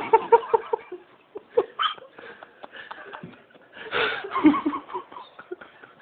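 A person laughing in short, quick pulses, with a louder burst of laughter about four seconds in.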